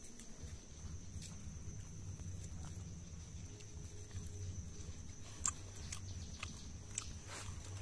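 A man eating poori and chicken curry by hand, chewing noisily and smacking his lips over a low rumble, with a few sharp smacks in the second half.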